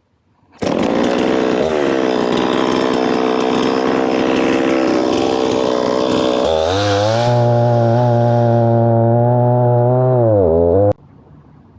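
Chainsaw running at full throttle while bucking a log. It starts suddenly, and about six seconds in it changes to a steadier, lower-pitched note. Near the end the revs sag briefly before the sound cuts off abruptly.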